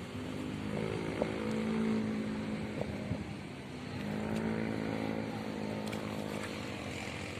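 A motor engine running, its pitch rising and falling; it eases off about three and a half seconds in, then picks up again.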